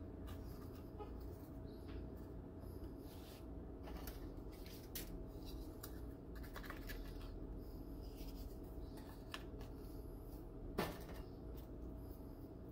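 Faint handling sounds of graham crackers being picked up and laid onto pudding in a glass baking dish: light scattered clicks and scrapes, with one sharper knock near the end, over a steady faint hum.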